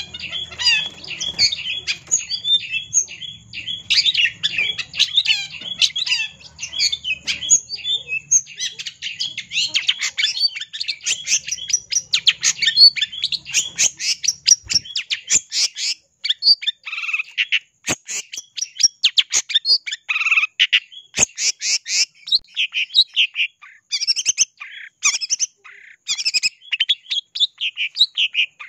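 Long-tailed shrike (cendet) in full song: a fast, near-continuous chatter of rapid high notes, with a few louder, lower notes around the middle.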